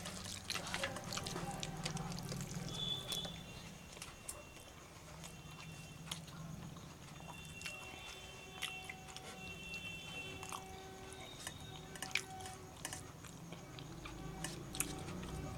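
Close-up eating sounds: a person chewing rice and curry, with scattered small clicks and wet taps from fingers mixing the food on a steel plate.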